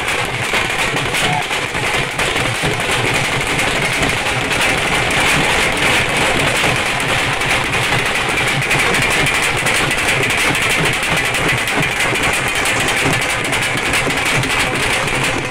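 Several dhols beaten with sticks together: loud, dense drumming with no break.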